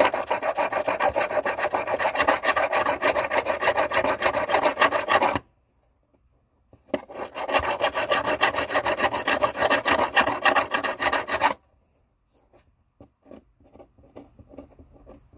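Hand file rasping in rapid back-and-forth strokes across the mitered end of a silverware piece clamped in a miter vise, filing it flat and flush with the vise jaws for an invisible solder seam. The filing stops a little past five seconds in and resumes about a second and a half later for about four more seconds. Then it stops, leaving only a few faint ticks.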